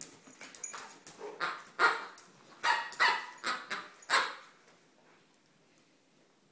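Irish setter barking in play, a run of short barks over about four seconds.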